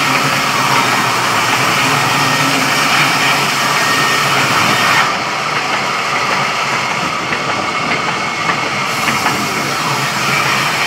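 Sawmill saw machinery running steadily with an engine-like hum. About five seconds in, the highest hiss drops away for a few seconds, and a few light clicks follow.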